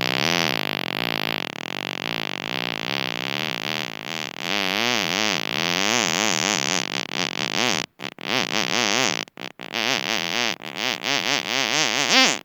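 A long human fart whose pitch wavers up and down, breaking over its last few seconds into a string of shorter sputtering farts.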